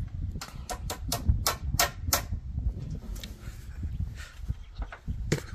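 A run of sharp, irregular taps, about ten in quick succession in the first two seconds or so and then a few scattered ones, over a low rumble.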